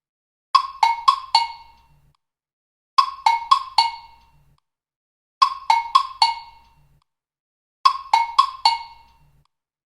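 TikTok notification alert tone repeating: a quick figure of four short, pitched notes that ring out briefly. It is played four times, about two and a half seconds apart.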